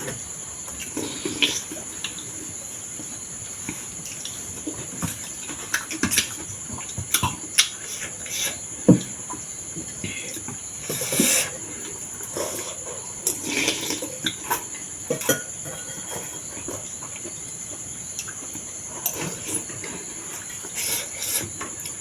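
Close-up eating sounds: irregular slurps, sips and chewing clicks of someone eating thukpa noodle soup, with a louder slurp about eleven seconds in and another a couple of seconds later. Under them, a steady high chirring of crickets.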